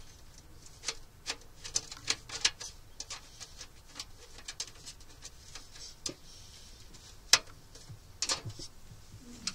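Irregular small plastic clicks and ticks as the round cover of a 3D printer's HEPA air-filter housing is turned and pressed home to secure it, with one louder click about seven seconds in.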